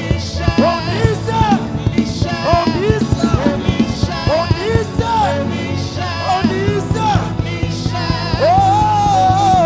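Live gospel worship music: a band with drums, and a lead voice singing wordless runs that ends on a long held note near the end.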